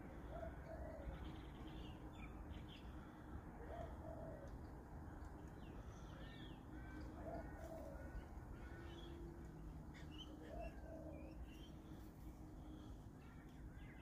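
Mixed wild birdsong: a low two-note call repeated about every three and a half seconds, over many quicker, higher chirps from small birds.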